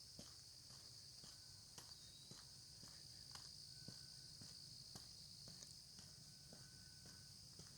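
Faint, steady high-pitched chorus of insects in the late-summer dawn, with soft, irregular footsteps on the lane.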